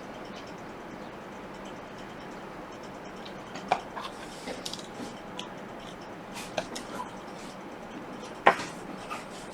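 Sparse light clicks and taps of small tools and parts being handled on a workbench, the loudest about eight and a half seconds in, over a steady faint hiss.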